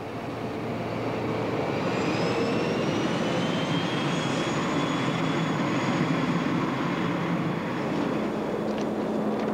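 Passenger train running past, a dense running noise with a high whine that climbs in pitch over the first few seconds and then holds steady.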